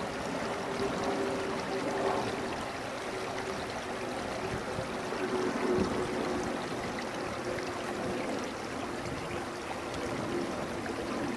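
Airbus A300-600ST Beluga's twin General Electric CF6-80C2 turbofans on landing approach, heard from the ground: a steady rushing jet noise with a constant humming engine tone.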